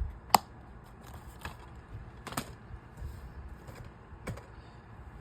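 DVD case and disc being handled: a few separate sharp plastic clicks and taps, the loudest about a third of a second in.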